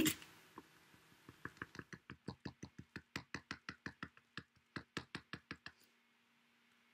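A cotton swab dabbing paint dots onto a card in a quick run of light taps, several a second, stopping near the end.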